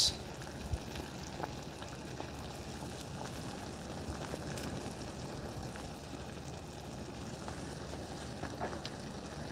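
Water at a hard rolling boil in a stainless steel pot, a steady bubbling with faint little pops.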